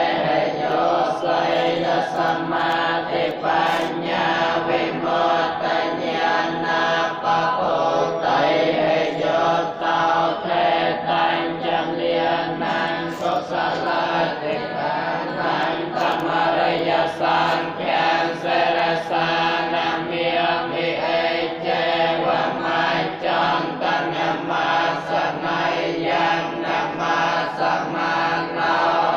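Buddhist monks chanting together: many men's voices in one continuous, steady group chant.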